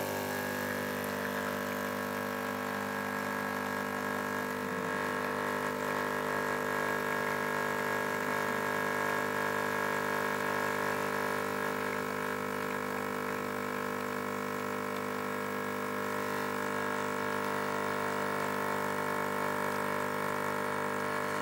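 An illy capsule espresso machine's vibration pump humming steadily while a shot brews, a steady buzzing tone with many overtones. It cuts off abruptly as the shot ends.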